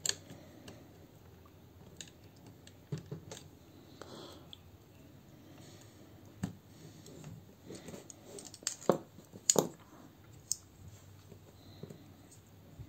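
Irregular plastic clicks and taps from the parts of a Mini Superitron combiner robot figure being handled and fitted together, with a couple of sharper clicks about nine seconds in.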